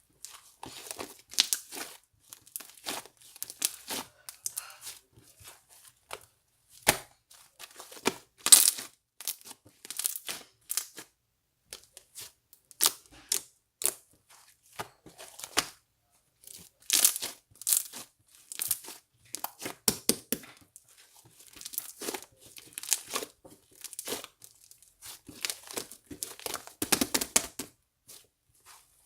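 Irregular crinkling and tearing noises, close up, in many short bursts with quiet gaps between them.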